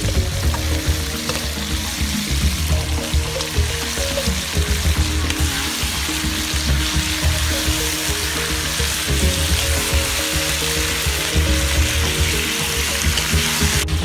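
Meat frying and sizzling in hot oil in a cast-iron wok as it is stirred, a steady hiss, under background music.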